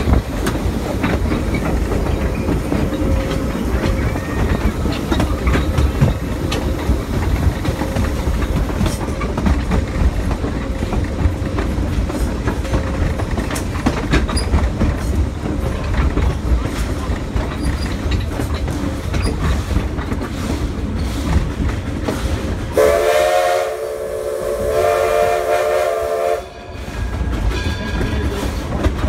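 Passenger train running behind a steam locomotive, a steady rumble with wheel clicks over the rail joints. Near the end the locomotive's steam whistle blows a chord for about three and a half seconds.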